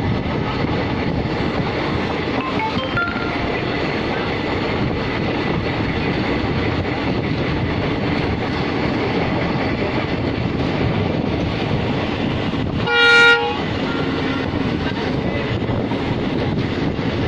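Express train of ICF coaches running steadily at speed, with wheel-and-rail noise. One short blast of the hauling WDP-4D diesel locomotive's horn comes about thirteen seconds in.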